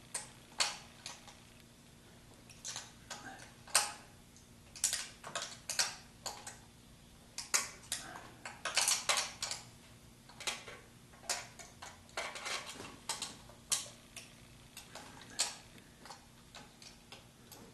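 Hand wrench working a bolt on an engine bracket, with sharp metallic clicks and clinks at uneven intervals, sometimes in quick clusters.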